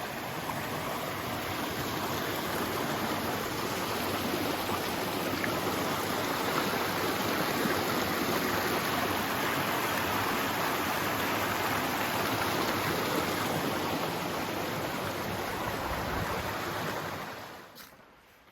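Steady rushing of flowing creek water, fading out near the end.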